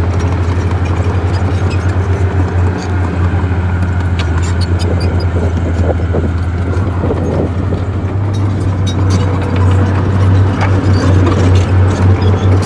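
Bulldozer's diesel engine running, a steady low drone, with scattered sharp clicks and knocks.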